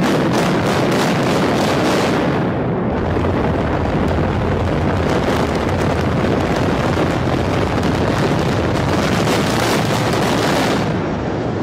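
Building implosion: a rapid string of demolition charges cracking one after another, in two runs, over a continuous loud rumble of the concrete structure coming down.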